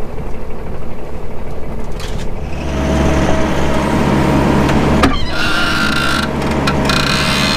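A John Deere 5055E tractor's diesel engine running. It gets louder about two and a half seconds in, and a high steady whine comes and goes over it in the second half.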